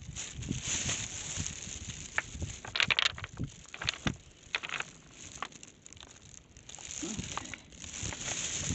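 Scattered crunching and crackling clicks from movement over stones and driftwood on a beach. They are densest about three seconds in, fainter through the middle, and grow again near the end.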